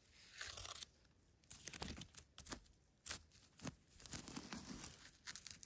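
Wood campfire crackling faintly, with scattered irregular pops and snaps from the burning embers.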